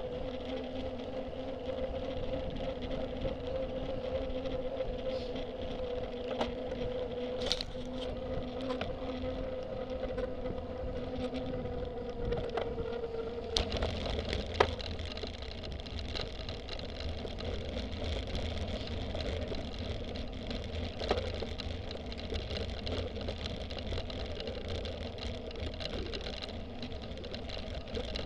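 Cyclocross bike racing in a pack, heard from a camera mounted on the bike: a steady hum of tyres rolling on tarmac, which gives way about halfway through to a rougher rumble as the bike runs onto grass and dirt. Scattered clicks and knocks from the bike are heard, the sharpest a little after the change of surface.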